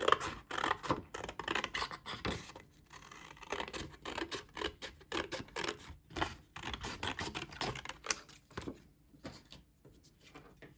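Scissors cutting a long strip of thin card: a run of irregular snips with card rustling, which thins out near the end.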